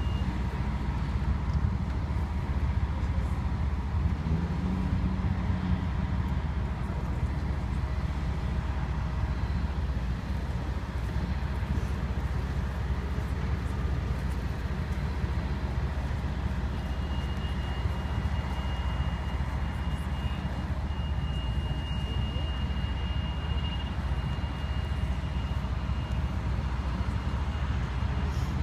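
Steady low rumble of road traffic and idling fire engines, with a faint, thin, high steady tone that comes in past the middle.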